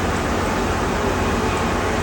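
Tea-processing machinery running, a loud steady mechanical hum and rumble with no breaks.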